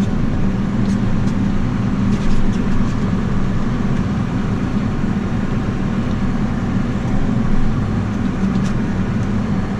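Tractor engine running steadily while pulling a grain cart through the field: a constant low drone that does not change pitch.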